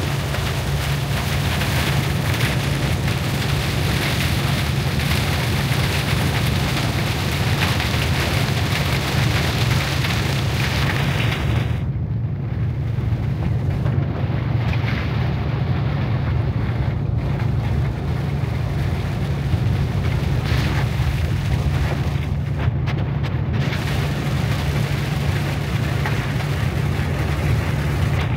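Heavy rain drumming on a moving vehicle's windscreen and body over a steady low rumble of the engine and tyres on a wet road. The high hiss of the rain thins out about twelve seconds in and comes back in short spells.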